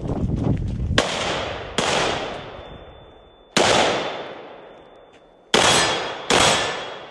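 Five gunshots, the first three from a handgun. Each sharp crack is followed by a long echo that dies away over a second or two. The shots come at uneven intervals, and the last two are close together near the end.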